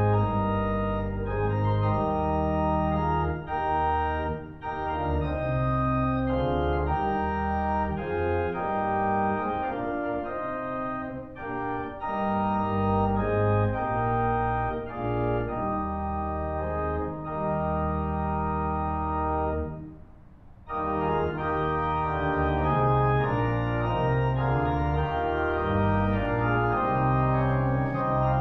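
Church organ playing sustained chords over deep bass pedal notes, breaking off briefly about two-thirds of the way through before the music resumes.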